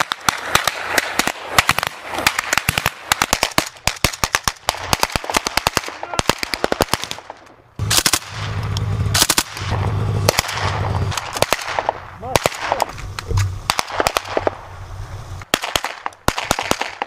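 Automatic rifle fire from several soldiers: rapid bursts and single shots overlapping, with short gaps between strings.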